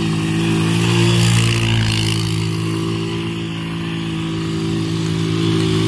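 Quad bike (ATV) engine running at fairly steady revs during a sand drift.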